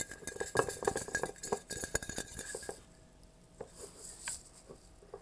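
ASMR-style tapping and clicking on a plastic bottle held close to the microphone, fast and busy for the first two and a half seconds, then only a few scattered taps.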